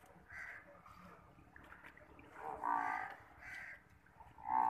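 Crows cawing: a string of short, harsh calls, the loudest about two and a half seconds in.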